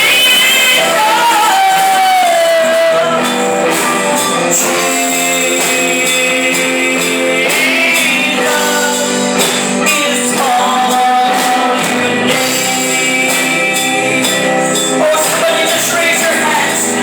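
A woman singing a gospel song live, with sustained, gliding sung notes over band accompaniment and steady high percussion.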